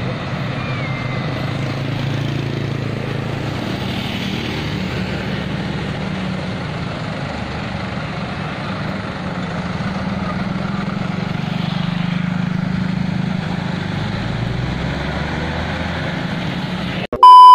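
Road traffic: engines of cars, motorbikes and a bus running in a steady low hum as they idle and creep along. A short loud beep cuts in just before the end.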